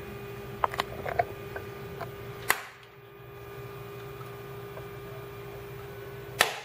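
A RAM memory module being pressed into a motherboard slot: a few small plastic clicks as it is seated, then a sharp click about two and a half seconds in and another near the end as the slot's retaining clips snap shut, the sign that the module is locked in place. A steady low hum runs underneath.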